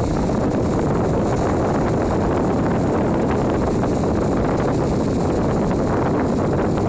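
Wind buffeting the microphone: a steady, fairly loud rumbling rush with faint crackles.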